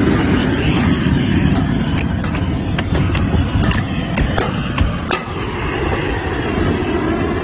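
Scattered sharp taps and cracks of a stick knocking the ice glaze off a frozen car, over a steady low rumble.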